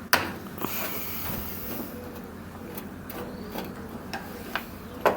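A sharp plastic click, then rubbing and scattered smaller clicks as the washing machine's plastic control-panel top is worked loose and taken off.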